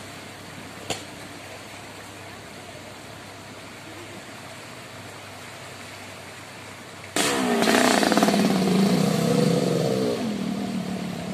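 A steady rush of floodwater. About seven seconds in, it gives way abruptly to a small motorcycle's engine close by, revving up and down as the bike ploughs through knee-deep floodwater, with water spraying.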